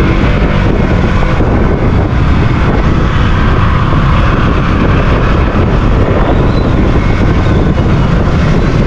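Motorcycle under way: a KTM Duke 200's single-cylinder engine running while riding, buried in loud, steady wind rush on the microphone.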